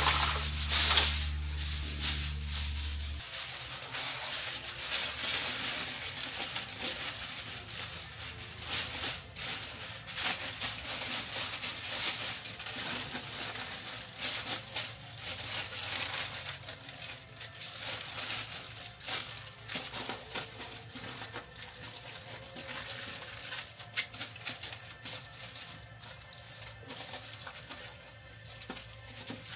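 Background music: a low steady bass under dense, rapid clicking.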